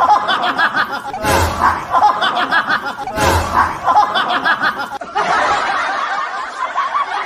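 A high-pitched voice snickering and laughing in three similar bouts about two seconds apart, each opening with a thud. From about five seconds in the chatter runs on without a break.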